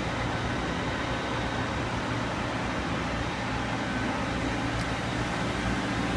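Steady mechanical hum and hiss of a powered-up but idle CNC lathe, with faint steady tones above it.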